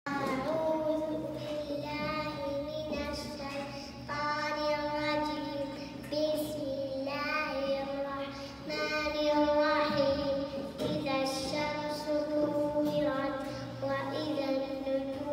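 A young girl's voice chanting Quranic recitation into a toy microphone in long, held melodic phrases, pausing briefly for breath every couple of seconds.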